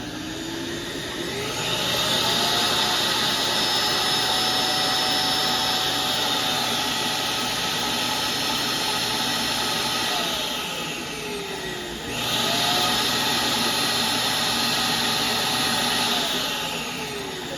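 Vacuum cleaner motor spinning up with a rising whine and running steadily. About ten seconds in it winds down, then it spins up again about twelve seconds in, runs, and begins winding down near the end.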